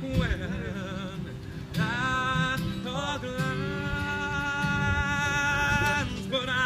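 Background music: a song with a long-held, wavering sung vocal line over a steady low accompaniment.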